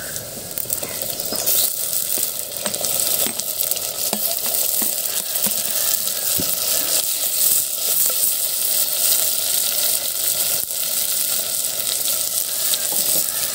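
Sliced tomatoes sizzling and crackling in hot oil with sautéed onions, garlic and green chillies in a clay pot, stirred now and then. The sizzle picks up about a second in as the tomatoes go in.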